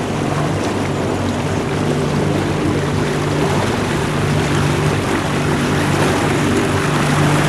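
Boat engine running steadily underway, a constant low hum, over a steady rush of water and wind.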